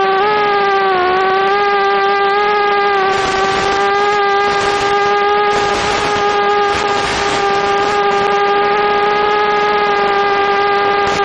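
Mini quadcopter's Suppo brushless motors and propellers whining at a steady high pitch, dipping briefly about a second in and then holding level. A rush of air noise rises over the whine through the middle of the stretch.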